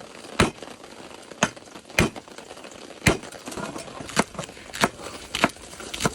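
Kitchen cleaver chopping on a cutting board: single sharp strikes, about ten of them, one every half second to a second.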